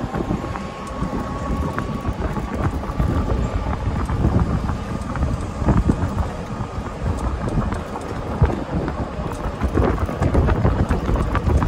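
Golf cart driving along a paved path: a steady low rumble with wind buffeting the microphone and frequent small knocks and rattles. A thin steady whine is heard for the first couple of seconds.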